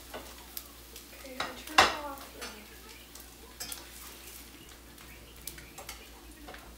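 Kitchen utensils clinking and scraping against a frying pan of eggs over faint sizzling, with one loud ringing metallic clang about two seconds in.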